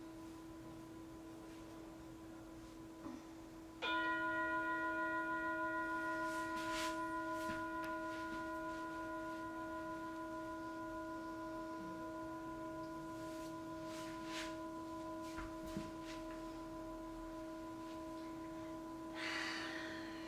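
Meditation music: a bell-like ringing tone, like a singing bowl, struck once about four seconds in and ringing on with a long, slow fade over a fainter tone already sounding.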